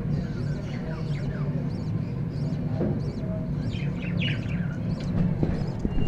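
Budgerigars chirping: a stream of short, high chirps and squeaky calls, with a few louder calls about four seconds in, over a steady low hum.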